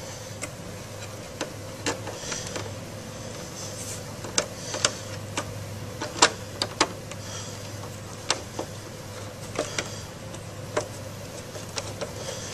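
T10 Torx screwdriver driving a mounting screw into a sheet-metal instrument chassis by hand: irregular light clicks and ticks as the driver is turned and re-gripped, a few louder ones near the middle, over a steady low hum.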